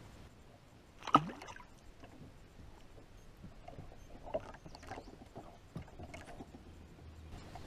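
Knocks and bumps from an angler moving about on a bass boat's deck and handling his fishing gear, with one loud sudden knock about a second in and smaller scattered knocks later.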